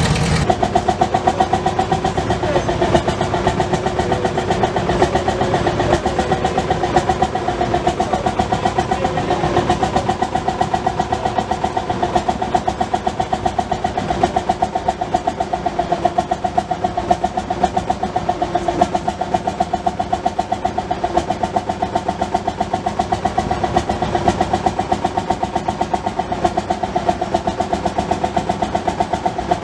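Vintage Renault tractor engine running steadily at idle, with an even, rapid beat of firing pulses.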